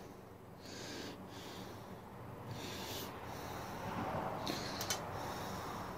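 A person breathing heavily through the nose close to the microphone, a breath every second or two, with a couple of sharp little clicks about five seconds in.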